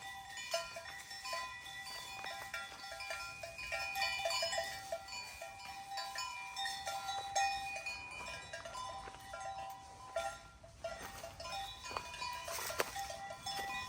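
Many metal bells clanking irregularly at several different pitches, like the bells of a flock of sheep or goats, with a few sharper clangs near the end.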